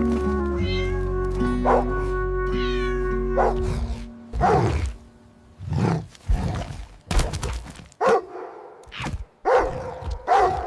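Background music with held notes for about the first four seconds, then a string of short cat meows separated by quiet gaps.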